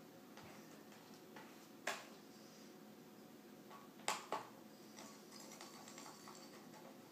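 Sharp little clicks of a screwdriver and small screws against the laptop's metal parts: one about two seconds in, then two in quick succession about two seconds later, over a faint steady background.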